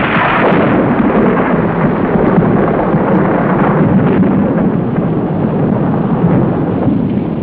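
Thunderstorm sound effect: a loud crash of thunder comes in suddenly, then heavy rain and rumbling thunder carry on steadily.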